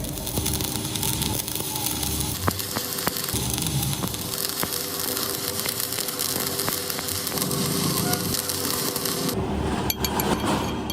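Electric arc welding on a steel truck axle: a steady crackling sizzle with scattered pops that cuts off abruptly near the end, followed by a few sharp metallic clinks.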